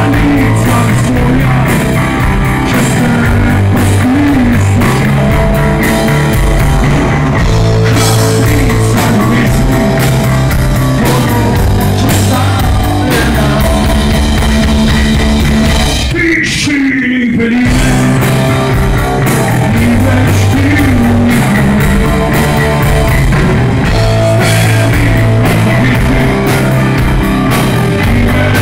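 A live rock band playing loudly: electric guitar, bass guitar and drum kit, with a man singing. A little past halfway there is a short break, about a second, in which the cymbals and guitar drop away before the full band comes back in.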